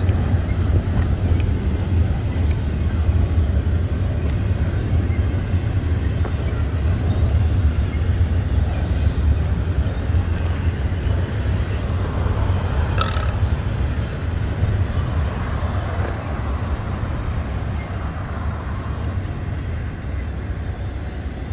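Double-stack intermodal freight train rolling past, a steady low rumble of wheels on rail that eases slightly toward the end, with one brief sharp click about 13 seconds in.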